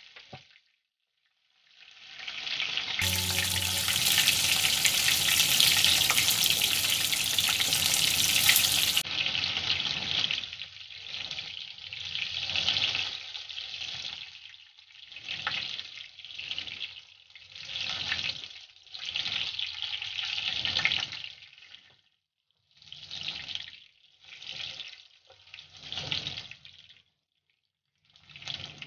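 Battered fish fillets frying in hot oil in a nonstick pan, a steady sizzle. After about ten seconds it swells and fades in short spells, with brief silent gaps near the end.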